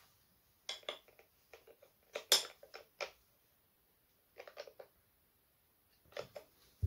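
A spanner and small metal parts clinking and clattering as they are handled, in scattered groups of short knocks, the loudest about two seconds in, with a low thump near the end.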